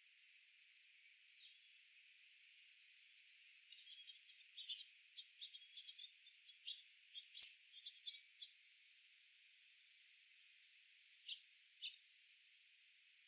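Small songbirds calling: scattered short, high chirps with a quick downward flick, and quicker tick notes crowded together in the middle, over a faint steady hiss.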